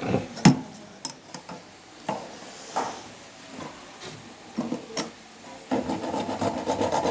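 Scattered sharp knocks and clicks, then from about six seconds in a continuous rasping scrape, like hand-tool work on a hard material.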